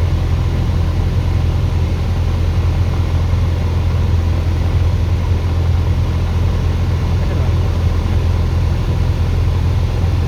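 Light aircraft's engine running as a loud, steady low drone, unchanging throughout.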